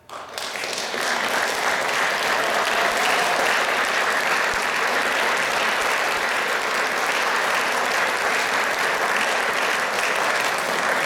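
Audience applauding, breaking out suddenly and swelling within the first second to steady, full applause.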